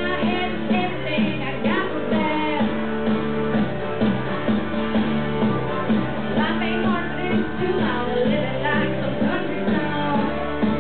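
A woman singing into a handheld microphone over amplified rock-pop accompaniment with guitar.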